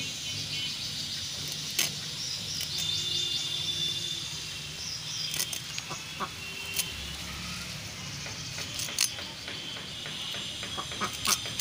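Birds chirping, with a few sharp clicks scattered through as a fish is scaled and cut against a boti's curved iron blade.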